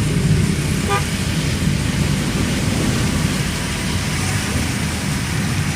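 Steady road and engine noise heard inside a moving car in heavy rain: a continuous low rumble with a hiss of rain and tyre spray over it.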